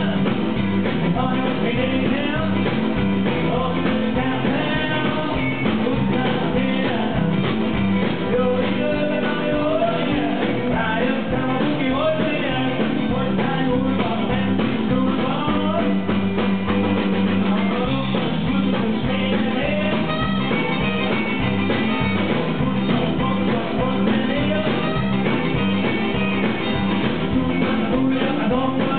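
Live rock and roll band playing with a man singing lead into the microphone.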